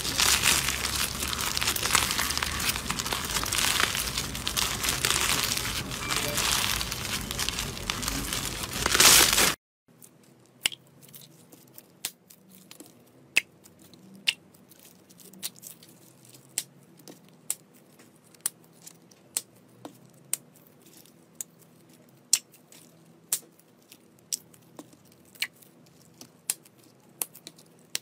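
Pink floam slime full of white foam beads squeezed and kneaded by hand, giving a loud, dense crackling. About nine and a half seconds in it cuts to a much quieter sequence of sharp single clicks, about one a second, as clear blue slime is handled in small plastic packets.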